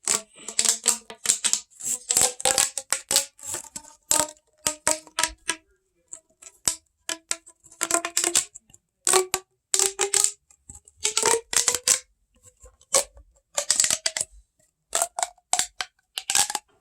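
Corrugated plastic pop tubes and their packaging being handled: repeated bursts of rapid plastic clicking and crackling, some with a brief ringing tone.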